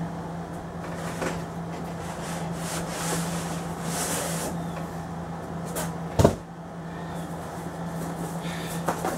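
Cardboard boxes rubbing and scraping as a long cardboard rifle box is slid out of its shipping carton. A single sharp knock comes about six seconds in.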